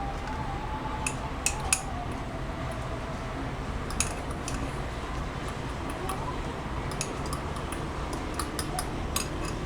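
Cake batter being beaten by hand in a small container, a metal utensil clicking irregularly against its sides over a steady low background hum.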